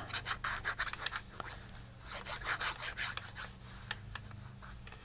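Fine-tip plastic glue bottle's nozzle scratching and rubbing across the back of a paper cutout as glue is laid on, with small clicks of the paper being handled. The soft scrapes come in a run, busiest about halfway through.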